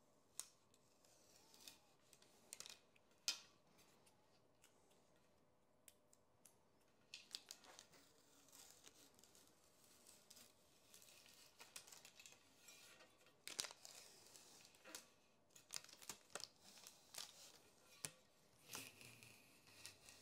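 Tubeless rim tape being peeled off a bicycle wheel rim: faint scattered ripping and crinkling with occasional small clicks. Sparse at first, busier from about seven seconds in.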